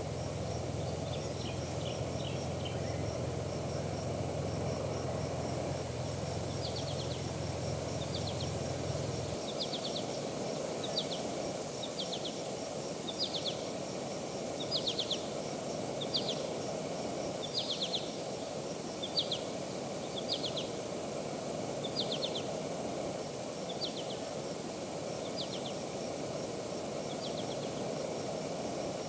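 Bush campsite ambience: a bird repeats a short call of two to four quick notes roughly every second and a half, over a steady background hiss and a thin high insect-like whine. A low hum underneath stops about nine seconds in.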